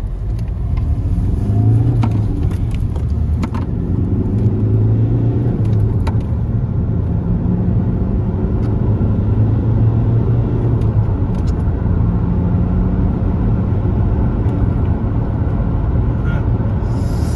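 Toyota Avensis D-4D diesel engine and road noise heard from inside the cabin while driving, getting louder over the first couple of seconds as the car picks up speed, then running steadily.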